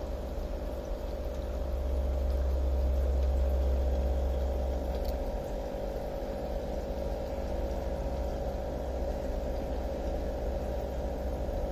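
Steady low mechanical hum with a faint hiss and one constant mid-pitched tone; the low rumble swells between about two and five seconds in.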